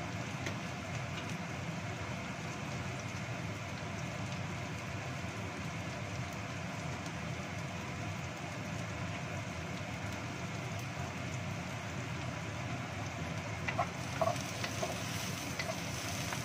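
Sliced shallots sizzling in oil in a wok, a steady hiss. From about two seconds before the end, a wooden spatula scrapes and knocks against the pan as they are stirred.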